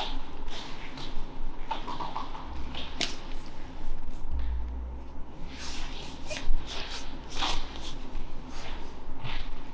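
Mouth noises of a man working down a dry scoop of powdered supplement: many short wet smacks and clicks of lips and tongue, with swallowing and breaths.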